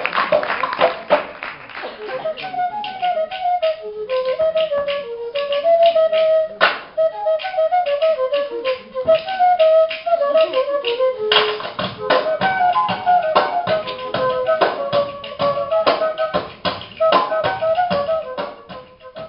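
Music: a simple single-line melody with a flute-like tone over rapid tapping percussion, fading out at the end.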